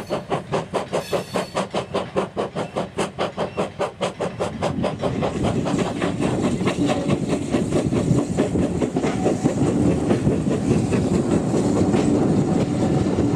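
Small industrial saddle tank steam locomotive working hard, its exhaust beating fast and evenly at about five chuffs a second. About four seconds in this gives way to the steady rumble and clatter of train wheels running over rail joints and points.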